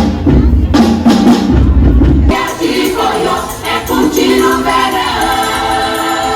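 Music with a heavy bass beat that switches abruptly about two seconds in to singing over held instrumental notes.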